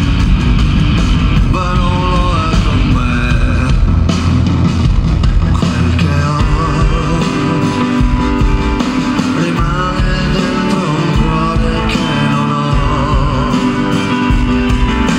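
Live rock band playing: a lead singer over electric guitar and drums.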